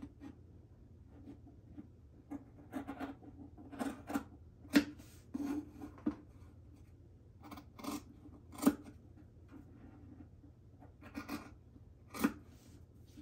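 Sharp pointed fabric scissors snipping through cotton fused to midweight interfacing, cutting the square corners out of a fabric panel. It is an irregular run of short, crisp snips and clicks; the sharpest come about five, nine and twelve seconds in.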